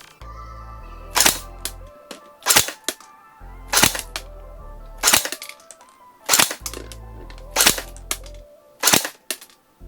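Airsoft Thompson M1928 replica firing seven single shots, evenly spaced about a second and a quarter apart, for a chronograph test. Background music plays underneath.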